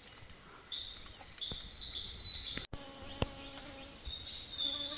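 Cicada droning at a steady high pitch. It starts suddenly about a second in, breaks off briefly near the middle, then starts again.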